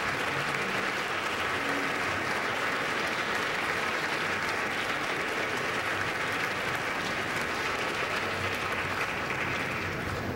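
A large audience clapping steadily in applause.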